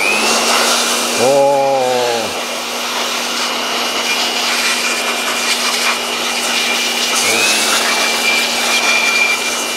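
Handheld Deco electric air blower starting up with a rising whine, then running steadily with a high whine over a rush of air as it blows dust out of an opened inverter welding machine. About seven seconds in it briefly slows and spins back up.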